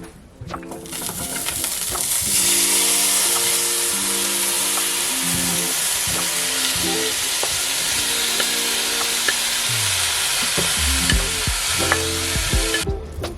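Food frying in a hot pan on the stove: a loud, steady sizzle that builds over the first two seconds and cuts off abruptly near the end. Background music plays underneath.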